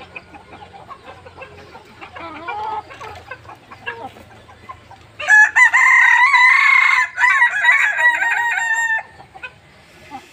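Kukuak Balenggek roosters calling: quieter clucks and calls at first, then about five seconds in one rooster gives a loud, long crow of nearly four seconds with a short break in the middle, the breed's drawn-out, tiered crow.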